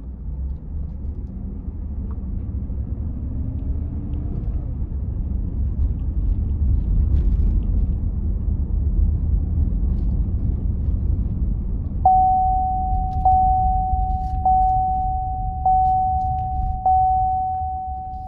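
Low rumble of a vehicle driving slowly, heard from inside the cabin. About two-thirds of the way in, a single-pitched chime starts dinging, five rings about a second apart, each ringing on until the next, typical of a dashboard warning chime.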